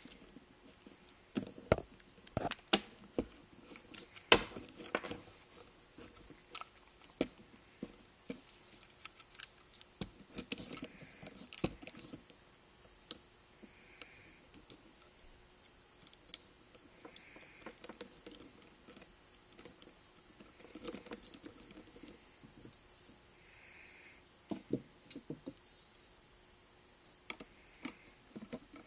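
Irregular light clicks and taps from a Daiwa Regal spinning reel's side cover and body being handled and fitted back together, the sharpest ones in the first few seconds, with a few faint scuffs later on.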